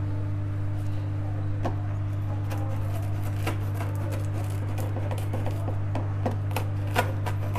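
A knife scoring cut lines into a warm slab of jaggery-bound puffed rice (mamra chikki) in a steel plate. The puffed rice gives scattered light crackles and clicks, starting about a second and a half in and growing more frequent, over a steady low hum.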